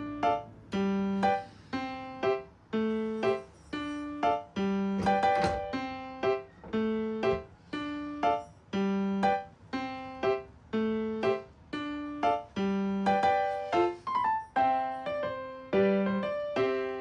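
Background music: a gentle piano tune playing in an even run of separate notes, about two a second, over a repeating bass line.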